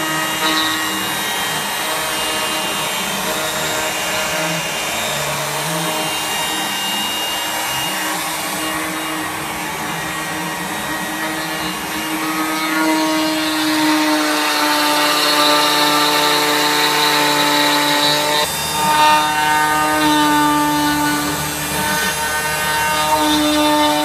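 CNC router spindle cutting into painted wood boards: a steady whine whose held tones shift in pitch a few times as the bit works through the wood.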